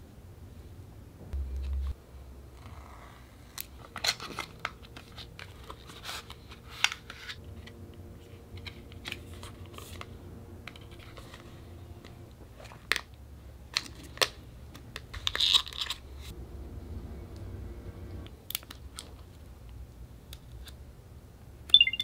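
Apple AirTag's cardboard packaging being opened and handled: scattered taps, clicks and paper rustles, with a longer rustle about two thirds of the way through.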